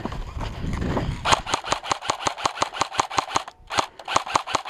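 Airsoft rifle firing a rapid string of shots, about eight a second: sharp clicks, each with a brief whine, with a short break about halfway through. A rustle comes before the first shot.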